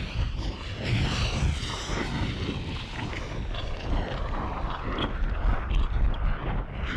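Volcano and lava sound effect: a steady deep rumble with crackling and hissing over it.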